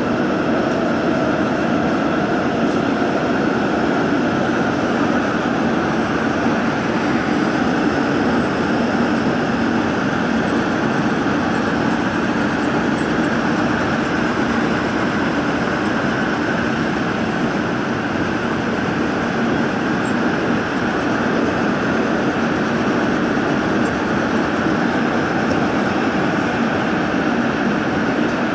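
Gwangju Metro Line 1 subway train running steadily through a tunnel: a continuous, even rumble and rush of wheels on rail.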